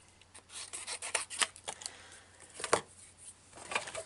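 A small piece of stamped cardstock being handled and slid over a work mat: a series of short, dry papery rubs and scrapes, the loudest a little under three seconds in.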